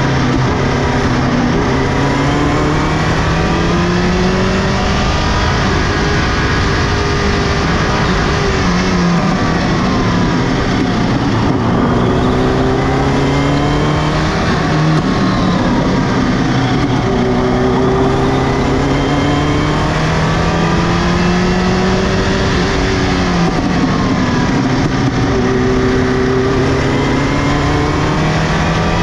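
Subaru Impreza GC8 rally car's turbocharged flat-four engine driven hard on a stage: the pitch climbs steadily through the revs and falls back sharply at each upshift, several times over.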